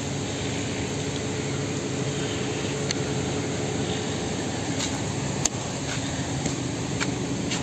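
Mercedes-Benz W202 running while stationary: a steady mechanical hum, with a few light clicks and one knock about five and a half seconds in.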